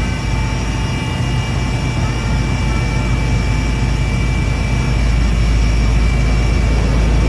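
A heavy engine running steadily: a deep rumble with a constant whine on top, no change in pitch.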